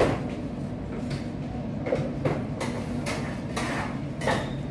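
A knife cutting down through a crumbly baked cake and scraping against the cardboard cake board beneath: a series of short scrapes and crunches.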